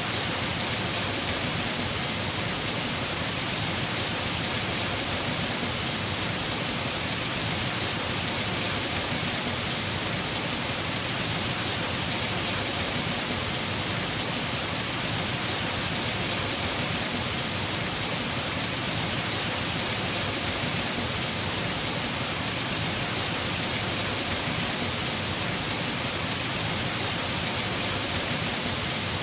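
Heavy rain falling steadily on a house roof, an even, unbroken rush of noise with no let-up.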